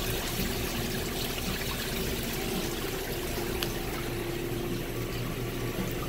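Water pouring steadily out of a freshly unplugged ice bin drain line and splashing across a tiled floor to a floor drain: the backed-up water from a Follett ice bin whose drain line had been pinched shut is draining away.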